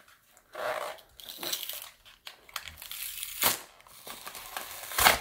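Plastic and cardboard packaging of a Pokémon card multi-pack being torn open and crinkled by hand, with a few sharp cracks, the loudest just before the end.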